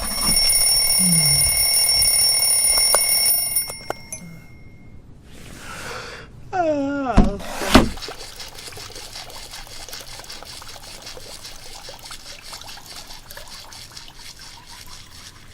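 An electronic alarm rings a steady, high, multi-toned sound and cuts off a little under four seconds in. About seven seconds in comes a short falling, wavering tone, followed by a soft steady hiss.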